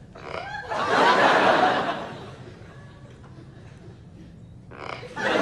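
Studio audience laughing in two waves of about a second and a half each, one near the start and one near the end, each set off just after a short vocal sound.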